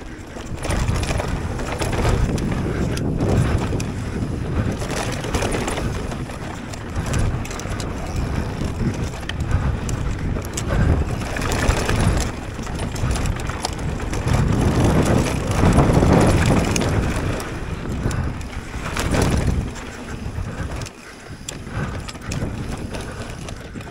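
Mountain bike ridden fast down a dirt trail: tyres crunching over dirt and rock, the bike knocking and rattling over bumps, with wind buffeting the helmet-camera microphone.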